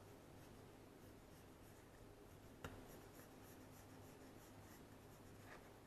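Faint scratching of drawing on paper as the outline of a knife blade is sketched, with a small tap about two and a half seconds in.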